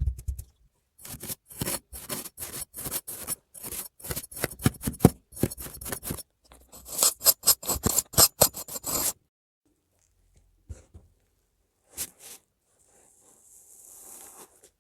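Kinetic sand crunching with many crisp crackles as it is worked, dense for about eight seconds. After that come a few scattered crackles and a soft hiss near the end.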